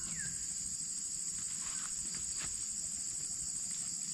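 Steady, high-pitched chorus of insects such as crickets, with a short falling chirp right at the start and a few faint clicks.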